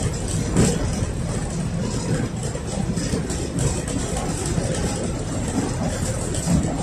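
Running noise inside a KTM-5M3 (71-605) tram car under way: a steady rumble of wheels on rails and the running gear, with a short knock about half a second in.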